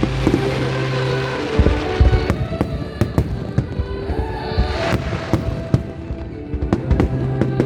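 Aerial firework shells bursting in a rapid, irregular string of sharp bangs with swells of crackle, over loud recorded music playing as the display's soundtrack.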